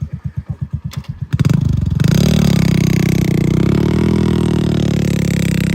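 A heavy vehicle's engine thumping at low speed in slow, even beats, then revved hard about a second and a half in and held running loud at high speed.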